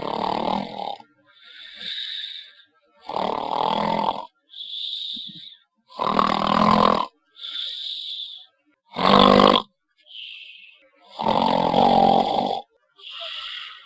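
A person snoring loudly and rhythmically, about one breath cycle every three seconds: a rough, rasping snore on each in-breath alternating with a thin, high hiss on each out-breath, five cycles in all.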